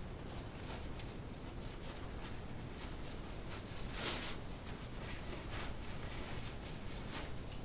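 Fabric stuff sack of an ultralight camp chair rustling as it is handled and packed, with a louder swish about four seconds in.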